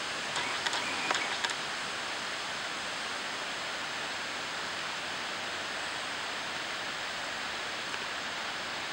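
Steady rushing background noise, even and unchanging, with a few short faint clicks in the first second and a half. No bird call is heard.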